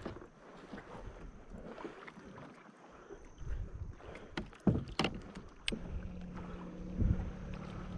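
Sharp knocks and bumps on a plastic kayak's hull, a few in quick succession just past the middle. From about two-thirds of the way through, a steady low hum joins in and holds.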